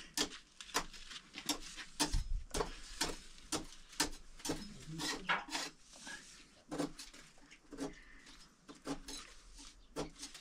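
A series of light, sharp clicks and taps at an irregular pace, a few each second, like small hard objects being handled and knocked together.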